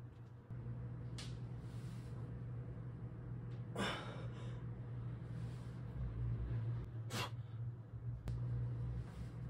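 A man's short, sharp breaths from effort while pressing through planche reps on parallettes, a few separate bursts with the strongest near the middle, over a steady low hum.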